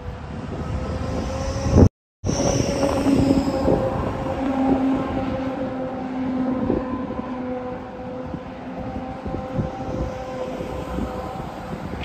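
A flatbed tow truck driving past, its engine and drivetrain giving a steady humming whine over low wind rumble, loudest in the first few seconds and then easing. The sound cuts out completely for a moment about two seconds in.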